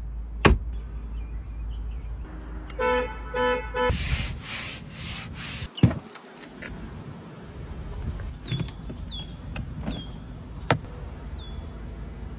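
Handling sounds of a Rolls-Royce convertible's interior fittings: a sharp click, then a short chime of three quick pitched beeps about three seconds in. A few loud rushing bursts follow, ending in a sharp knock near the middle, then scattered light clicks and brief squeaks.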